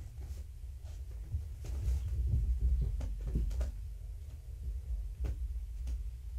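Kittens moving about on the carpeted floor: a flurry of soft knocks and rustling about two seconds in, and one more knock near the end, over a steady low hum.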